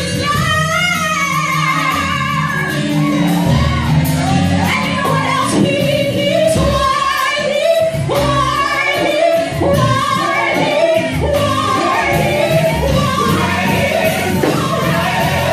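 Live gospel singing: a sung melody with vibrato over steady instrumental accompaniment.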